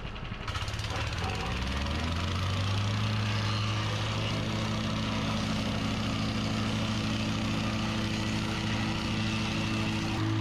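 Plate compactor's small gas engine revving up to full speed over the first couple of seconds, then running steadily at full throttle.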